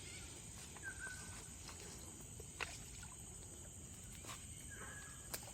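Faint outdoor ambience: a steady high-pitched insect drone, with a couple of short chirps and a few scattered clicks.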